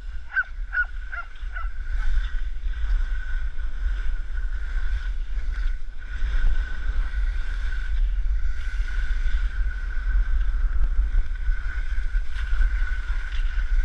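Wind rumbling hard on a camera microphone as the camera is carried fast downhill on skis, a loud, steady low rumble. Four short high chirps sound in the first two seconds.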